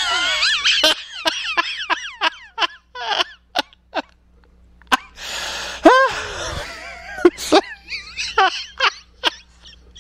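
A man laughing hysterically in high-pitched shrieks and gasps: a long wavering squeal at first, then a run of short laugh bursts, and a loud shriek about six seconds in.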